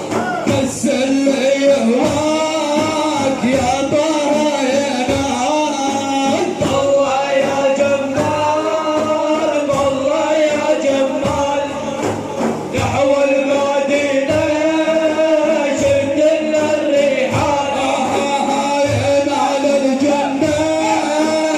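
Men's voices chanting an Iraqi manqaba, a devotional song in praise of the Prophet, over steady beats of hand drums.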